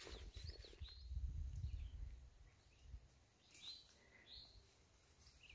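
Faint songbird chirps: a few short, high calls near the start and a cluster of them past the middle, with a low rumble about a second in.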